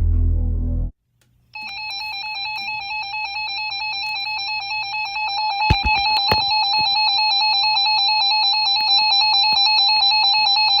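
Intro music stops about a second in. After a brief silence, the Emergency Alert System attention signal starts: a steady, loud two-tone alarm, with a couple of pops around the middle, that cuts off suddenly at the end.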